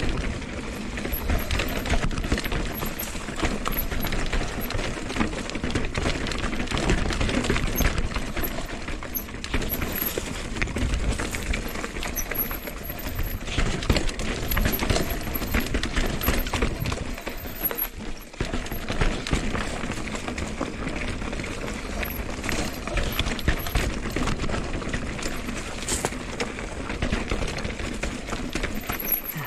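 Mountain bike riding down a rocky trail: the tyres crunch and knock over stones while the bike rattles and clicks over the bumps, over a constant low rumble.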